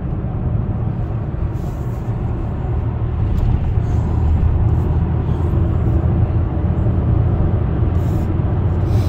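Opel Insignia 1.6 CDTI diesel driving at road speed: a steady low rumble of engine and road noise that swells slightly about three seconds in. It is the road test after a timing chain and oil pump replacement, with the car running well.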